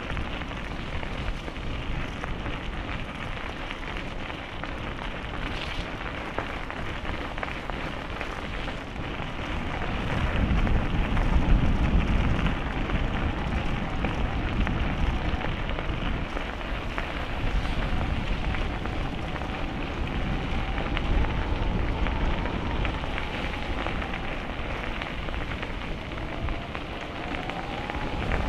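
Noise of a bicycle ride on the camera microphone: steady wind rush and tyre rumble, with heavier low buffeting about ten seconds in and a faint wavering whine in the second half.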